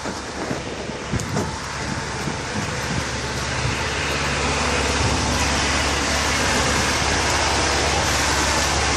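A tractor's diesel engine running steadily, growing louder about three seconds in, with a few knocks in the first second and a half.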